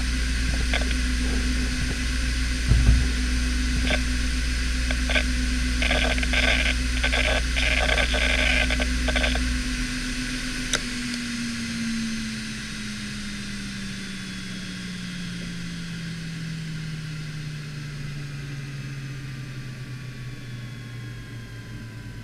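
Fujitsu MBA3300RC 15,000 rpm SAS hard drive idling with a steady spindle whine and occasional head clicks, a rapid run of clicking in the middle and a dull thump about three seconds in. A sharp click comes about eleven seconds in, and then the whine falls slowly in pitch as the platters spin down after power-off.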